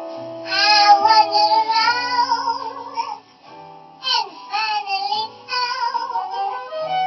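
Jazz song with a high female singing voice with vibrato over a bass line. The voice breaks off for a moment about three seconds in, then carries on.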